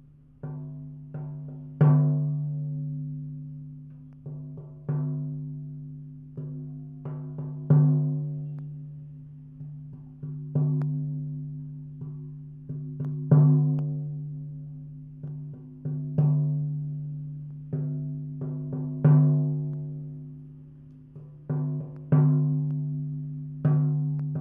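Low-pitched struck percussion for a sound bath, played in a slow, steady pattern. A strong stroke comes about every three seconds with lighter strokes between, and each one rings out with a held low tone that fades before the next.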